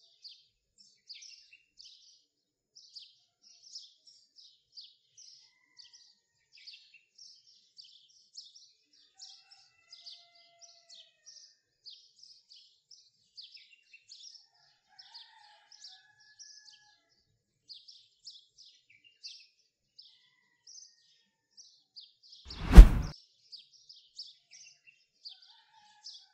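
Birdsong: short, high chirps repeating steadily, about one or two a second. Near the end, a single loud, brief whoosh-like sound effect cuts in.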